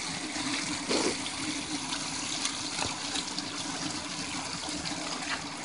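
Water pouring steadily through a Gold Cube hopper and sluice into its catch tub, with a brief louder splash about a second in.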